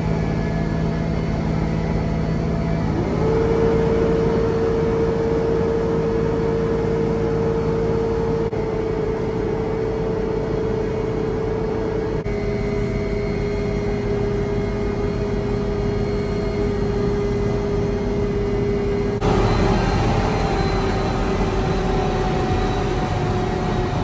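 Concrete mixer truck's diesel engine running while the truck drives, its note rising about three seconds in and then holding steady. The engine sound shifts abruptly a few times along the way.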